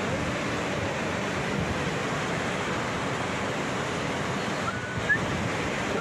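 Mountain river rapids cascading over boulders: a steady, dense rush of white water, with a brief faint high note near the end.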